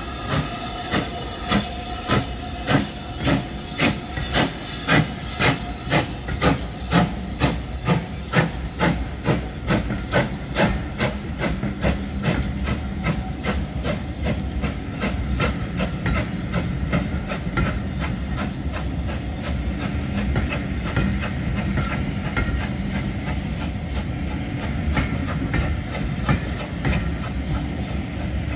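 BR Standard Class 5 steam locomotive 73082 Camelot getting away with a train: sharp exhaust beats at about two a second, quickening as it gathers speed and loudest over the first ten seconds or so. The beats then fade as it draws away, leaving the coaches rolling past with wheels clicking over the rail joints.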